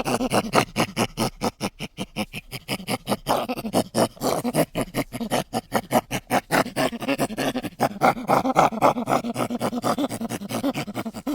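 Sound effect for an insect-like creature resembling a cricket or grasshopper: a rapid, rasping chatter of many pulses a second, rising and falling in strength.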